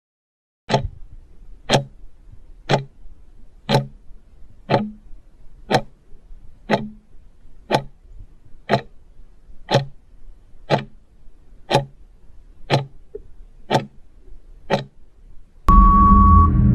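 Countdown timer sound effect ticking steadily once a second, fifteen ticks. Near the end a louder sound effect with a steady high tone cuts in.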